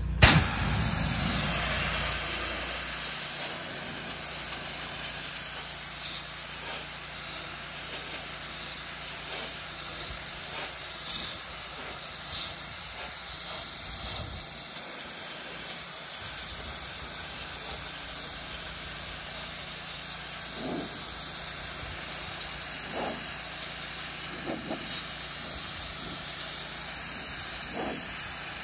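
Pressure washer jet spraying a brick mailbox with a steady hiss, over the steady hum of the pressure washer's engine.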